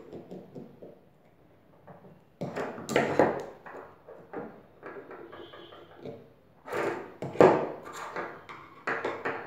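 Screwdriver prying at a 9-volt battery's metal casing, with scraping and clicking and two loud clusters of knocks and clatter on a wooden tabletop, about three seconds in and again about seven seconds in.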